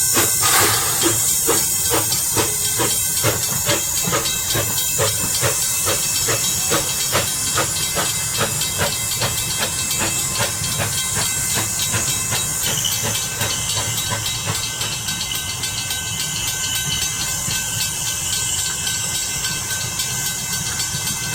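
Edison 4-4-0 steam locomotive running with a steady hiss of steam and an even rhythmic beat a few times a second, slowly getting quieter.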